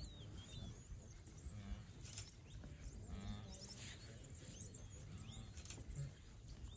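Faint savanna ambience: wildebeest grunting now and then, with a few bird chirps over a low steady rumble.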